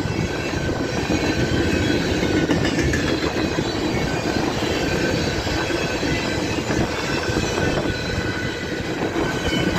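Freight train cars rolling past at close range: a steady rumble of steel wheels on the rails with clacking over the joints, and a faint high wheel squeal.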